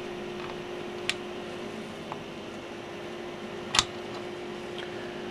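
Small cooling fan on a PWM controller's heatsink running with a steady hum. Over it come a few light clicks as a lead's spade terminal is fitted to the red binding post and tightened; the loudest click is about four seconds in.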